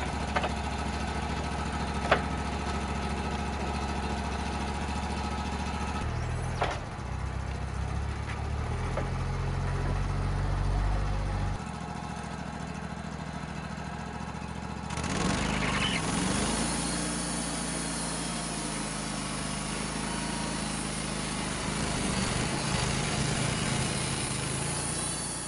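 Wood-Mizer LT35 hydraulic sawmill's engine running steadily, with a sharp knock or two early on as a cant hook bites the log. The engine note changes for several seconds midway, and from about halfway on a steady hiss joins it as the band blade cuts into a large Douglas fir log.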